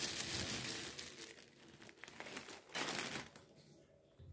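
Puffed rice pouring out of a crinkling plastic packet into a ceramic bowl, a dry rustling hiss. It is loudest for about the first second, then fades, with a brief second rustle about three seconds in.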